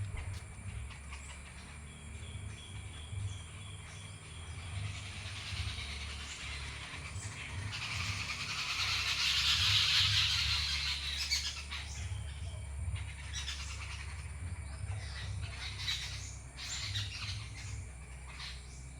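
Small birds chirping and calling, with a short run of repeated high notes a few seconds in and scattered chirps later. A hiss swells up through the middle and fades again, over a steady low rumble.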